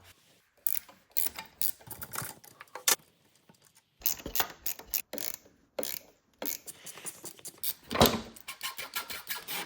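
A 12 mm ratchet wrench clicking in irregular runs while it undoes the foot peg assembly's mounting bolts, with metal clinks and a louder knock about eight seconds in.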